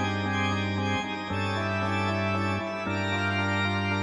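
Background music: sustained held chords over a deep bass note, the chords changing about every second.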